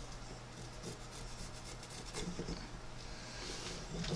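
Pencil hatching on the bare wood of a spoon handle: faint, continuous rubbing strokes of the lead on the wood.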